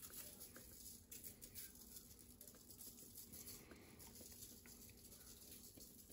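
Faint, uneven pattering of cayenne pepper shaken from a spice shaker onto raw chicken wings.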